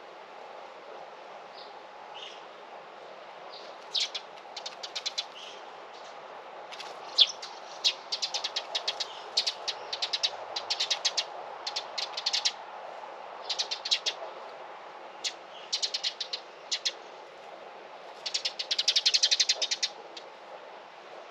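Small birds chirping in quick runs of short, sharp notes, coming in repeated bursts and densest near the end, over a steady faint background noise.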